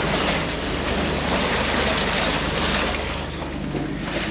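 Wind buffeting the microphone and water rushing along a sailing catamaran's hull, over a steady low hum from its diesel engines motor-sailing.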